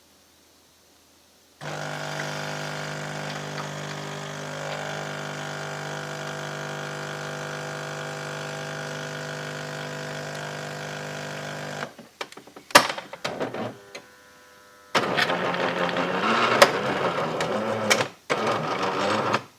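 Jura Impressa C5 bean-to-cup coffee machine working: its pump hums steadily for about ten seconds and then stops. A few sharp clicks and short hisses follow, then about four seconds of loud, uneven hissing that cuts off just before the end.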